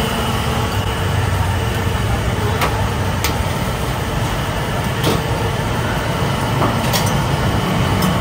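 Steady rumble of street traffic, with a few faint clicks scattered through it.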